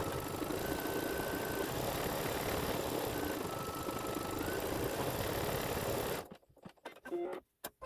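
Embroidery machine stitching at a steady pace, stopping abruptly about six seconds in, followed by a few short clicks.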